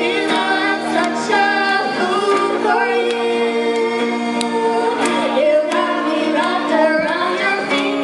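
Live female vocals sung into a microphone, with the melody moving and holding notes, over acoustic guitar accompaniment.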